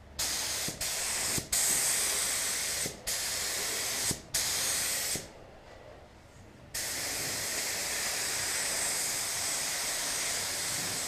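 Gravity-feed spray gun hissing with compressed air as clear coat goes onto a car door, the trigger pulled in five short passes in the first five seconds. After a pause of about a second and a half it runs in one long unbroken pass from about seven seconds in.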